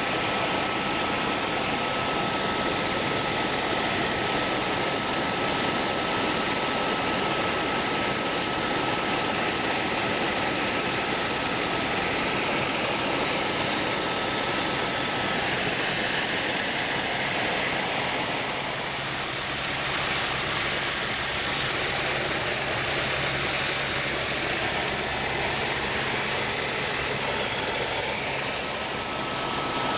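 Aircraft engine running steadily in flight, a loud even drone with a thin steady whine that fades out about halfway through and comes back near the end.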